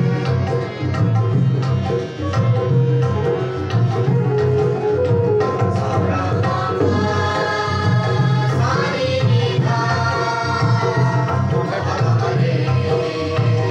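Harmonium playing held chords with tabla keeping a steady beat, and a group of voices singing along, clearest in the second half.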